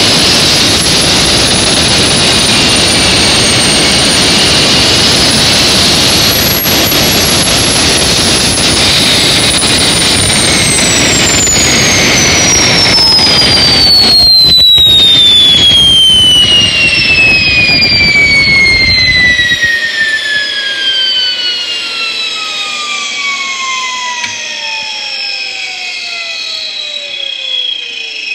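Small gas turbine engine running with a high whine over a loud rushing roar, then winding down. Near the halfway point the whine begins to fall steadily in pitch as the turbine spools down. The roar cuts off about two-thirds of the way through, leaving the falling whine.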